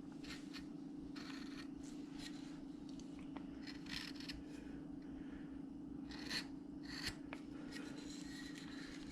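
Carving V tool cutting into wood in short, faint scraping strokes, irregularly spaced, over a steady low hum.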